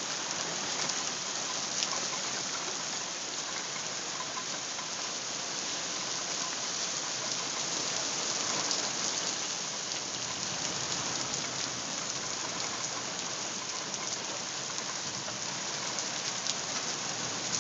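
A steady downpour of rain and hail pelting the ground and surfaces: a continuous hiss with a few sharper ticks of hailstones.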